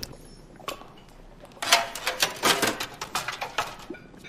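Kitchen clatter on a film soundtrack: a dense run of quick clicks and knocks of utensils and crockery, starting about one and a half seconds in, with a few softer clicks before.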